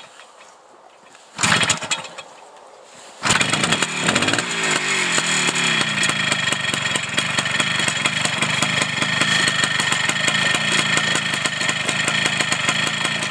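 Kawasaki F7 175cc two-stroke single being kick-started from cold: one kick fires briefly about a second and a half in, then on a later kick it catches about three seconds in. Its revs rise and fall for a couple of seconds, then it settles into a steady run.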